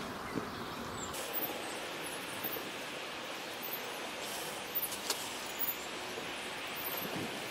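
Hot water being poured into the small brass boiler of a model steam engine: a soft steady hiss, with a few light clicks.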